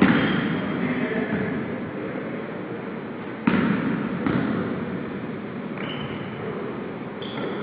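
Basketball game on a gym's hardwood court: the ball bouncing and sneakers squeaking, echoing in the large hall, with two loud knocks, one at the start and one about three and a half seconds in.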